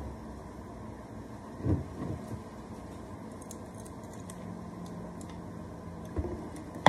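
Handling of a plastic creamer bottle and a cup of ice: a knock about two seconds in, a few faint clicks, then creamer poured over the ice and knocks as the bottle is moved near the end.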